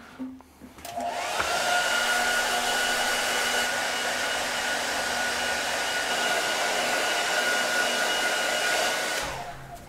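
Handheld hair dryer switched on about a second in, its whine rising quickly to a steady pitch as it blows over the wet feathers of a washed bird skin, then switched off near the end and spinning down.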